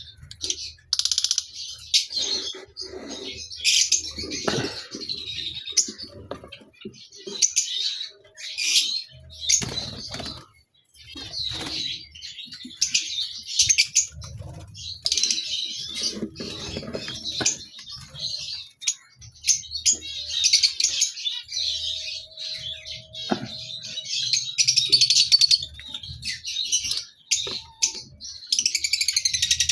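A flock of caged lovebirds chirping and chattering: shrill, overlapping chirps in quick bursts, one after another.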